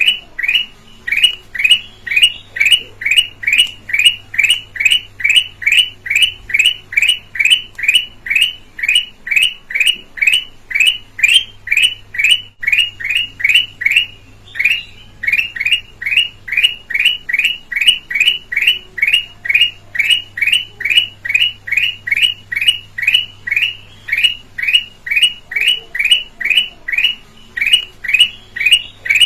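Kutilang emas, a red-eyed yellow bulbul, calling one short clear note over and over at an even pace, about two and a half a second, with a brief pause about fourteen seconds in.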